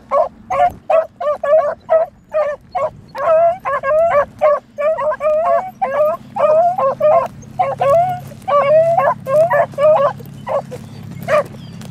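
Beagles baying on a rabbit's scent trail: short, repeated yelping bays coming two to three a second, overlapping through the middle and thinning out near the end.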